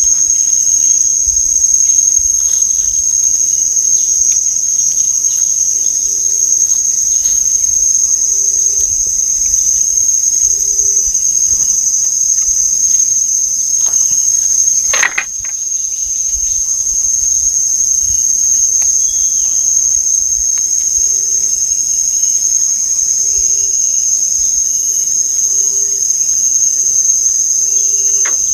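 Forest insects shrilling in one steady, high-pitched drone. A single sharp knock comes about halfway through, and faint short low notes repeat every second or so in the second half.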